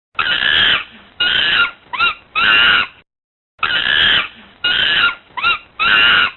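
Monkey calls: a run of four short, harsh, loud calls, some sliding up in pitch, then after a brief pause the same run of four calls again.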